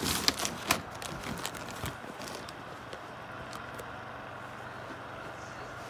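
A few sharp knocks and clicks in the first two seconds as the phone is handled and moved, then a steady faint hum.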